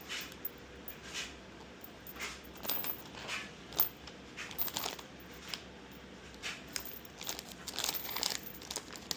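Packaging rustling and crinkling in short, irregular bursts as furniture parts and hardware are handled and sorted during assembly.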